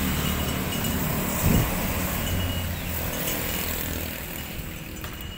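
Water pouring from a plastic jug onto loose potting soil in a pot, a steady splashing stream, with a single thump about one and a half seconds in and a steady low hum underneath.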